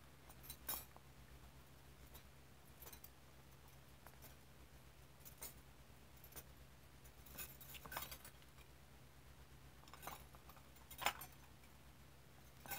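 Faint, scattered light clinks and scratches, about a dozen spread irregularly, as a hand strokes an oil pastel stick over paper with stacked metal bangles on the wrist. A low steady hum lies underneath.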